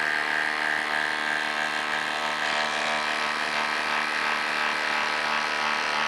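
Milwaukee M18 cordless impact driver hammering steadily under heavy load as it drives a 10-inch lag screw into a wood stump through a socket.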